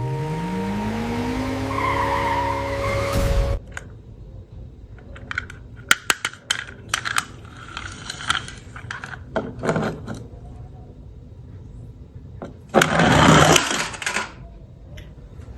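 A short music sting with a rising sweep cuts off about three and a half seconds in. Then come small scattered clicks, taps and rattles from plastic toy cars and packaging being handled, with a brief rustle near the end.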